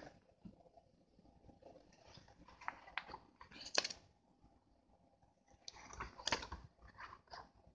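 Pages of a thick paper book being flipped by hand, rustling and flapping with sharp snaps. The page turns come in two bunches, about two seconds in and again about six seconds in.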